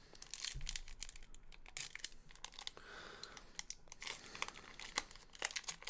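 A trading card pack's wrapper being torn open and crinkled by hand: a faint, irregular run of crackles and rustles.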